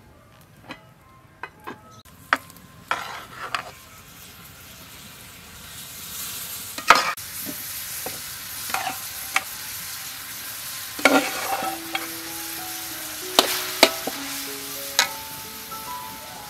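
Metal spatula scraping and knocking in a steel wok while a mash is stirred into coconut milk over the fire, with a frying sizzle that builds up about five seconds in. Soft melodic music comes in during the second half.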